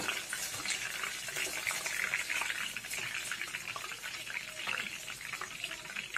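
Hot oil in a deep-frying pan sizzling and crackling steadily, with a dense patter of small pops.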